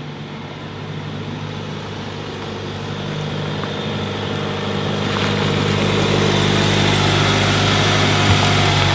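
Vehicle engine running at a steady pitch, with surrounding noise growing gradually louder, and a brief knock near the end.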